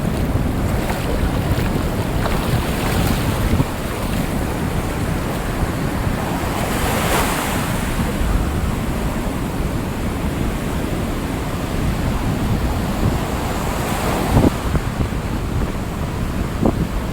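Rough Atlantic Ocean surf, waves breaking and washing in a steady roar, with wind buffeting the microphone. The louder wave crashes come about seven and fourteen seconds in.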